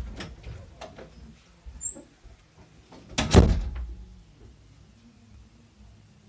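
Footsteps and a room door being opened, with a brief high squeak about two seconds in, then the door shut with a loud bang a little after three seconds in.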